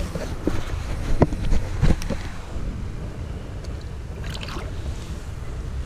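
A hand splashing in shallow creek water as a trout is let go, with a few sharp splashes about one and two seconds in over a steady low rumble.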